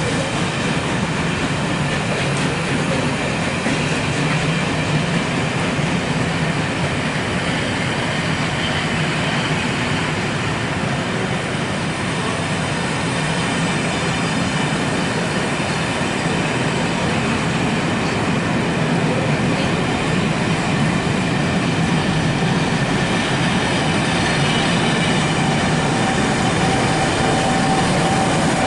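Passenger coaches rolling past on the track: a steady rush of wheels on rail with clickety-clack, growing a little louder near the end as a diesel locomotive at the rear of the train draws level.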